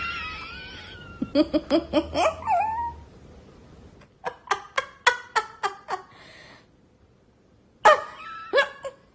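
A cat meowing, with a long drawn-out meow at the start, along with bursts of rhythmic human laughter.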